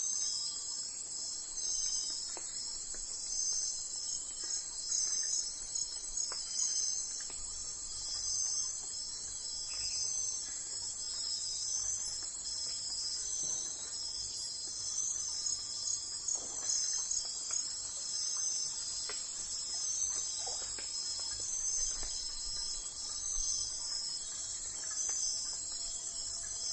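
A chorus of crickets chirping steadily, a high-pitched pulsing trill that never lets up, with a few faint short calls in the background.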